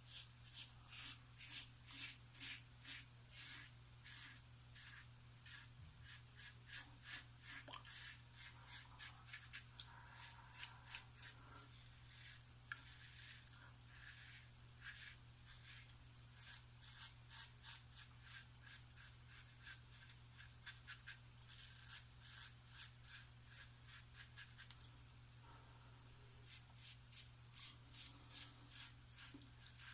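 Double-edge safety razor scraping through lathered stubble on an across-the-grain pass: short, faint scratchy strokes in quick runs. A steady low hum sits underneath.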